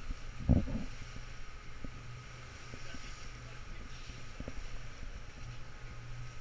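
A motorboat under way: its motor gives a steady low drone under the rush of water along the hull and wind buffeting the microphone. There is a single thump about half a second in.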